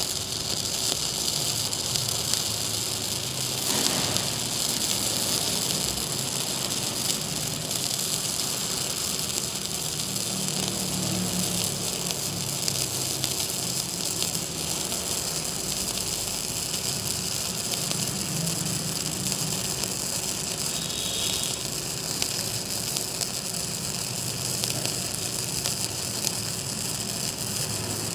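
Sasuke MIG-200 Pro mini MIG welder's arc crackling and sizzling steadily as a bead is run on thin steel box section.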